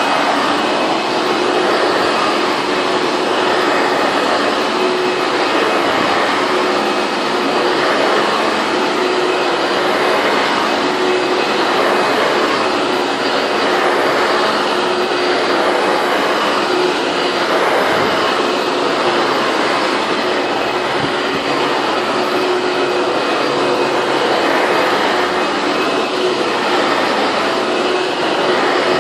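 Late-1990s Hoover Bagless twin-chamber upright vacuum cleaner running steadily, its motor hum and airflow swelling and easing about every two seconds.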